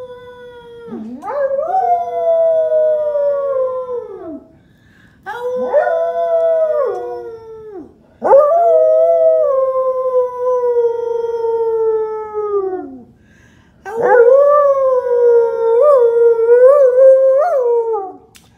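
English Springer Spaniel howling, its 'singing': four long drawn-out howls with short pauses between them. Each howl drops in pitch at its end, and the last one wavers up and down.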